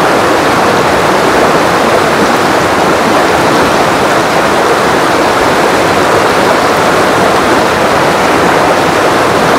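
Fast, churning river water rushing over rapids: a loud, steady rush of water that holds even throughout.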